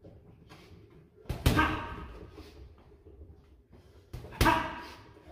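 Boxing gloves punching a hanging heavy bag: two hard hits about three seconds apart, with lighter shuffling and softer sounds between them.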